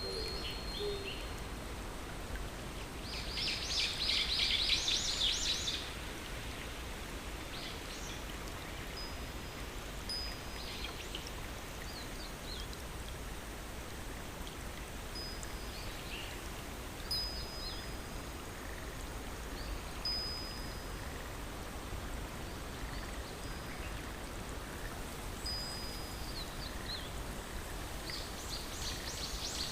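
Nature soundscape: a steady stream-like rush of water under short, high bird whistles every few seconds. Two bursts of a dense trilling chorus come in, one a few seconds in and one near the end, and a low hoot sounds right at the start.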